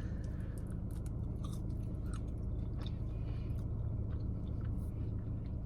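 Close-miked chewing of soft Parmesan French fries: small wet mouth clicks and soft chews, with no real crunch, over a steady low hum.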